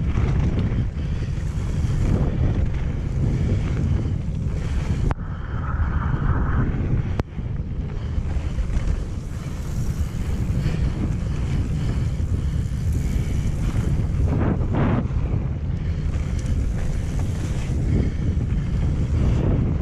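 Wind buffeting the camera microphone over the rumble of mountain bike tyres rolling fast down a gravel trail, with a couple of sharp clicks from the bike about five and seven seconds in.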